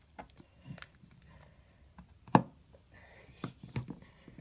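Handling noises from toy figurines being moved in slime: a few scattered small clicks and taps, the sharpest a little over two seconds in and a quick cluster near the end.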